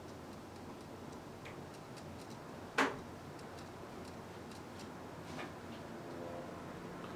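Light, irregular clicks and taps from handling a liquid eyeliner pen at the face, with one sharp, louder click about three seconds in.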